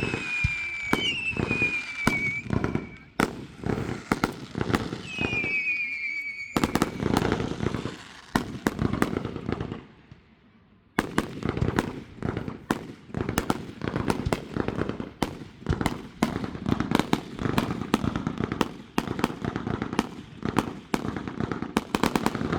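Fireworks going off: rapid crackling pops and bangs, with three whistles gliding down in pitch in the first six seconds. A brief lull about ten seconds in, then dense continuous crackling.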